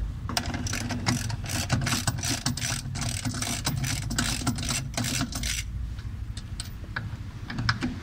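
Socket ratchet wrench clicking rapidly as it backs out the screws holding a washing machine motor's stator coil. After about five and a half seconds the clicking thins to scattered single clicks.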